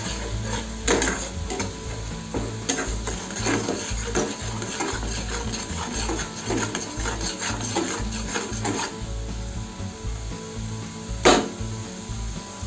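Metal spatula scraping and stirring thick masala paste in a kadhai while the paste sizzles as it fries in a little water. The scraping strokes stop about nine seconds in, and one sharp knock comes near the end.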